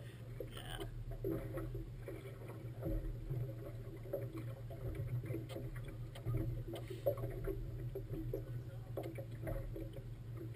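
A motorboat's engine running with a steady low hum, while choppy water slaps irregularly against the hull.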